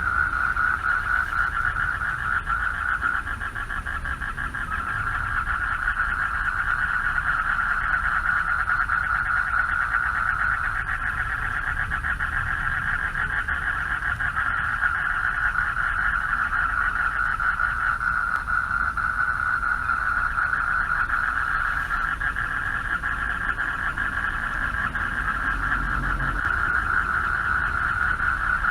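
A dense chorus of male frogs calling for mates at a pond at night, a continuous rapid pulsing trill with no pauses. A low rumble sits underneath.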